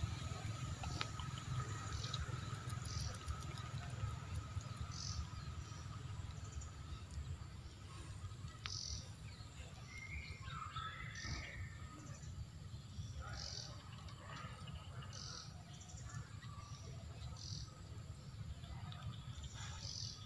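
Wild birds calling: short high chirps repeated every couple of seconds, with a brief warbling call rising and falling about ten seconds in. A faint steady insect buzz fades out in the first few seconds, over a constant low rumble.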